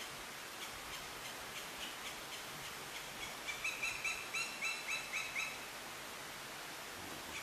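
A woodpecker calling: a quick run of about eight clear, repeated notes in the middle, over faint regular ticking.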